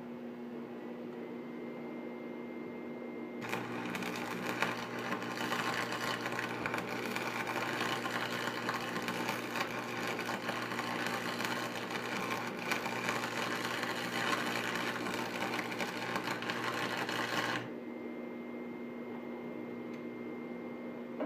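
Stick welding with a 6011 electrode on a steel mower deck: about three seconds in the arc strikes and crackles and sizzles steadily for about fourteen seconds with a low hum under it, then stops. A steady hum runs throughout.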